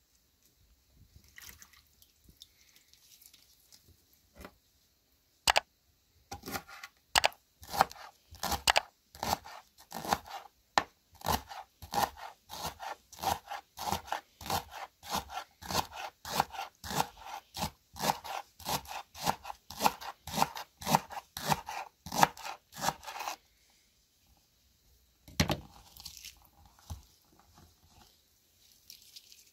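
Kitchen knife chopping green onions on a wooden cutting board: a steady run of crisp cuts, about two to three a second, starting about five seconds in and stopping a few seconds before the end, followed by one louder knock on the board.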